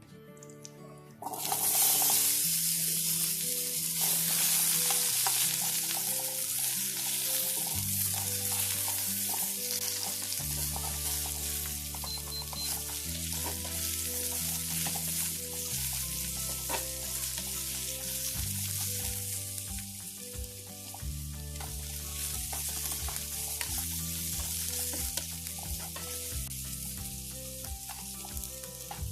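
Food going into hot oil in a pan: a loud sizzle starts suddenly about a second in, then frying goes on steadily with occasional clicks of stirring.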